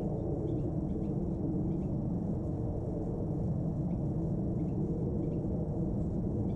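Steady low outdoor rumble with faint, short bird chirps scattered through it.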